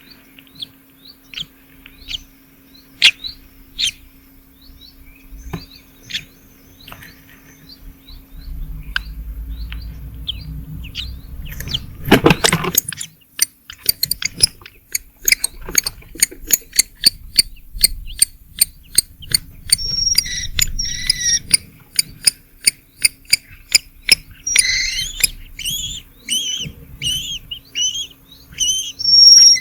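Small songbird nestlings cheeping in the nest: scattered high chirps, then a brief loud burst about twelve seconds in, followed by a rapid, even run of high chips, about three a second, with louder chirps over it near the end, typical of chicks begging for food.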